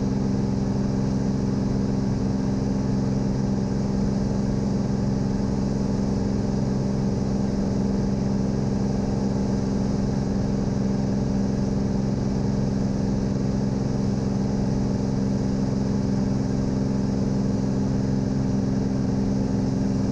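Cirrus SR22's six-cylinder piston engine and propeller droning steadily at climb power, heard inside the cabin.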